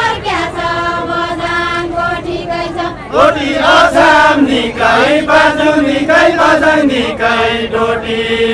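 A group of voices singing a deuda folk song together, in long phrases with drawn-out held notes and a new phrase starting about three seconds in.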